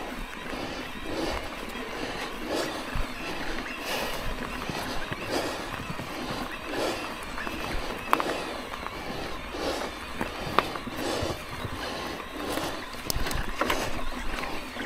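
E-mountain-bike rider puffing hard in a steady rhythm, about one breath every second and a half, over trail and wind noise, with a couple of sharp clicks from the bike.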